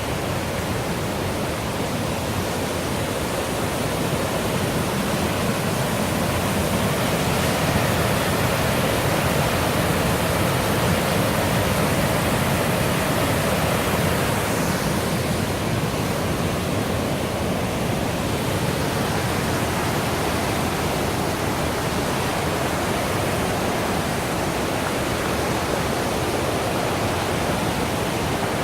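Millstone River water rushing, a steady, even rush with no break.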